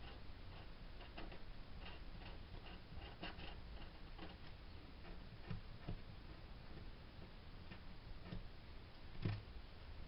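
Faint, irregular light ticks and taps of close hand work on an acoustic guitar's lacquered top, with a soft thump near the end.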